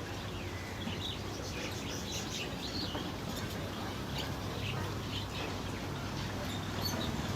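Small caged birds chirping: many short, high chirps over a steady low hum.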